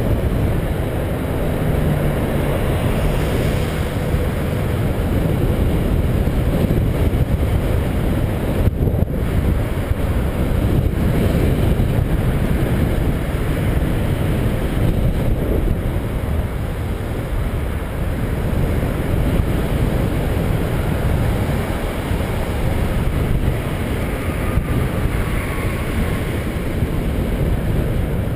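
Steady wind rushing over the microphone of a camera riding along on a moving bicycle, a loud low rumble with no separate events.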